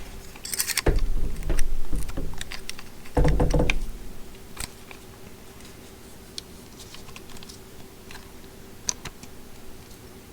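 Handling clicks, clunks and rattles of an oscillating multi-tool and a metal blade as the blade is worked into the tool's quick-release clamp, with a few heavier clunks in the first four seconds, then light ticks.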